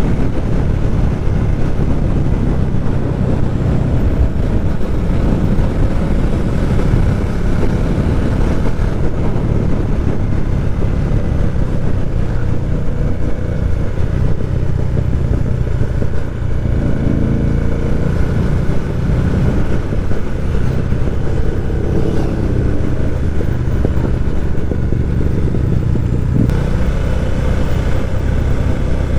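Motorcycle engine and exhaust running steadily while riding, with the pitch rising and falling briefly a few times around the middle as the throttle changes.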